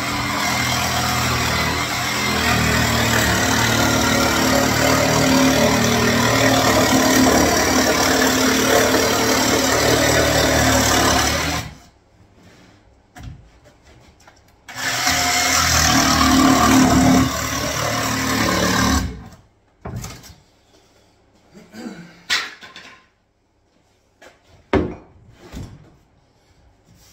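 Makita cordless jigsaw cutting through a chipboard laminate worktop. It runs steadily for about twelve seconds, stops, then cuts again for about four seconds. Near the end there are a few short knocks.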